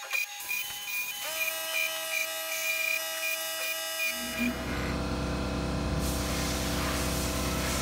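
Pocket NC desktop five-axis CNC mill engraving a wooden cylinder: its motors whine in steady tones that shift pitch in steps. About four seconds in, a louder low hum and a noisier cutting sound join in.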